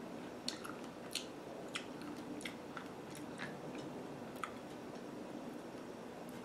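Close-miked chewing of a chocolate-covered strawberry, with short wet mouth clicks every half second or so.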